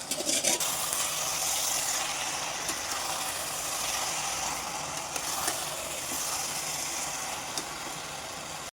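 Chicken curry sizzling steadily in a pan on the stove, with a few clicks of a spoon against the pan in the first half second.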